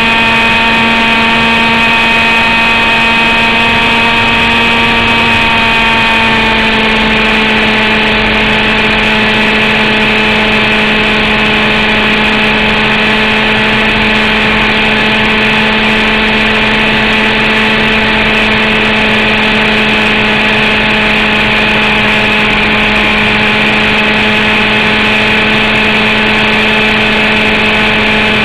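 The Zenoah G29RC two-stroke gasoline engine of an RC Mongoose helicopter, heard up close from a camera on board, running steadily at flight speed. Its pitch drops slightly about six seconds in and then holds.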